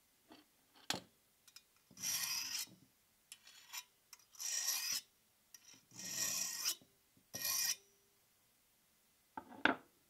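A hand file drawn four times across a freshly quenched 5160 steel knife blade, a file test of its hardness; each stroke is a rasping scrape of about half a second to a second. A short knock about a second in and a sharp click near the end.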